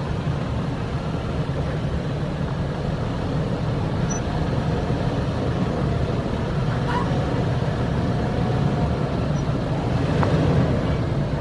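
A 2011 Toyota 4Runner Trail Edition's 4.0 V6 running at low speed as the SUV crawls over a rough dirt off-road trail. A steady low engine and drivetrain rumble is mixed with tyre and body noise, with a couple of faint knocks from the rough ground.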